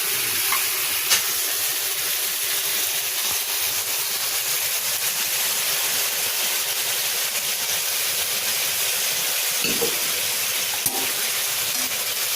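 Boiled peas and carrots sizzling and hissing steadily in a hot tadka pan, with a couple of light clicks.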